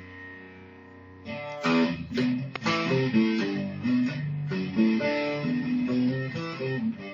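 Acoustic guitar music: a held chord rings and fades for about the first second, then strummed chords come in and give way to a run of picked notes.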